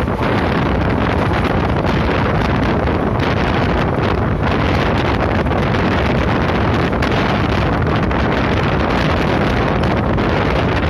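Steady wind blasting across the microphone of a phone held out of a fast-moving passenger train, mixed with the train's running noise.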